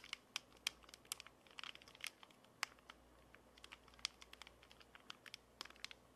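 Soft slime being pressed and coiled into a jar of clear slime, giving off irregular small sticky clicks and pops, several a second, thinning out near the end.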